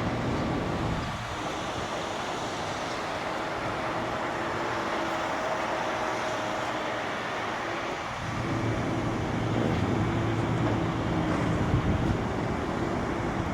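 Mobile crane's diesel engine running steadily under load while lifting, a little louder from about eight seconds in.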